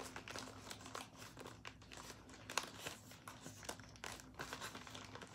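Paper and packaging crinkling and rustling in irregular short crackles as items are handled out of a mail box, over a faint steady hum.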